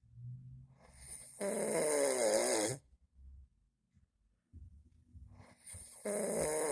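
A man snoring in his sleep: two snores a few seconds apart. Each starts as a low rumble and swells into a loud snore with a wavering pitch. The second begins near the end.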